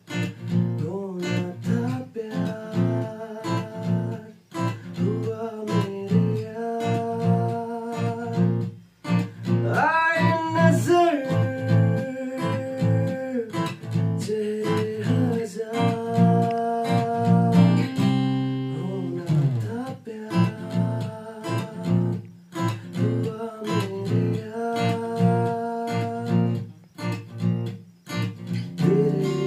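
Music: a song with strummed acoustic guitar chords and a singing voice.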